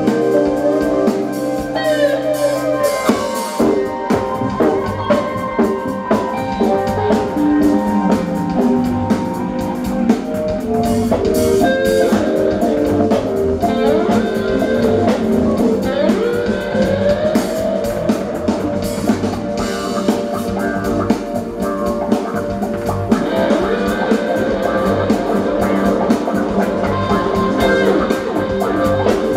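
Live rock band playing loudly with electric guitars, bass and drum kit, heard from the audience floor of a club. A held chord opens, and the drums come in about three and a half seconds in and keep a steady beat under the guitar lines.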